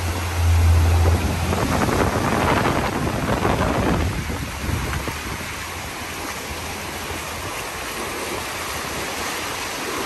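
Ocean surf washing on the beach with wind buffeting the microphone, a low rumble in the first second or so; louder for the first few seconds, then easing.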